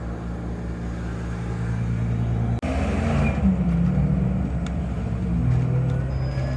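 City transit bus drivetrain heard from inside the cabin: a steady low drone, broken by a sudden short dropout about two and a half seconds in, after which it is louder and its pitch shifts as the bus picks up speed.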